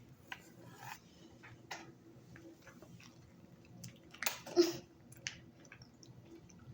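Faint chewing and mouth noises of someone eating a snack, with scattered small clicks and a louder brief sound about four seconds in.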